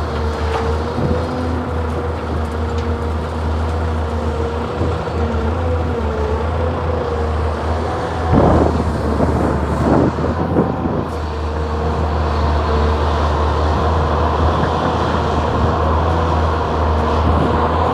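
Hyundai Robex 480LC excavator's diesel engine running steadily with a wavering whine over it, and a louder, rougher stretch of noise about eight to eleven seconds in.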